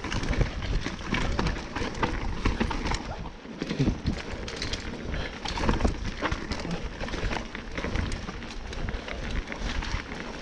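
Mountain bike riding fast down a rough dirt trail: a constant clatter and rattle of the bike over bumps, with tyre noise on the dirt.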